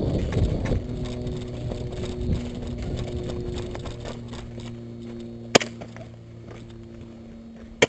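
Two single sharp airsoft gun shots about two seconds apart in the second half, over a steady low hum; the first few seconds hold rustling and knocks of movement.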